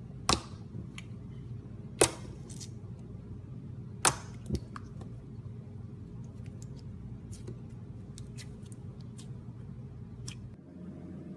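Slime being handled, with sharp popping clicks as air pockets in it burst: four loud pops in the first half and many small clicks after, over a steady low hum.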